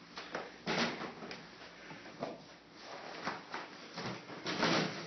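A string of soft knocks and rustles from people moving about and handling things quietly, a little louder about a second in and again near the end.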